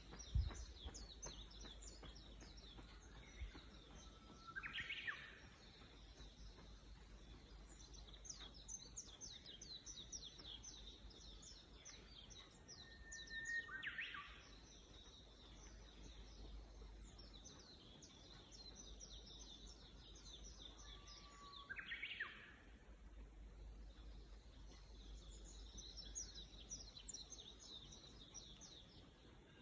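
Wild birds calling: many faint, high, thin chirps and twitters come in clusters. One bird repeats a louder call three times, about eight seconds apart: a short steady note, then a quick rising sweep. A single sharp thump comes right at the start.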